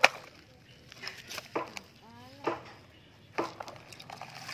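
Clicks and knocks of a plastic toy dump truck being handled as its gravel-loaded bed is pushed up by hand. One loud sharp click comes right at the start, then about five lighter knocks with a short ring.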